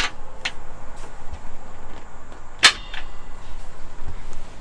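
A few sharp clacks from the cushioned platform of a Kingstar Camino-88 truck camper's convertible couch-bunk knocking into place as it is folded and stowed. The loudest clack comes a little past halfway.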